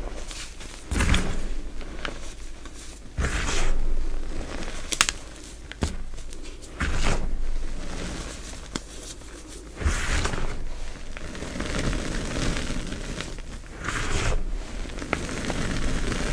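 Hands squeezing and churning a heap of crumbled gym chalk: repeated dry, crumbly crunches and powdery crackles, one push every second or two, with a sharp click about five seconds in.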